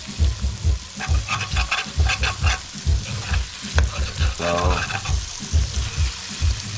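A metal spoon stirring and scraping boiled sweet potato chunks around a stainless steel pan in repeated strokes, while the oil sizzles underneath. The spoon scrapes up the browned, burnt onion and garlic stuck to the pan's bottom.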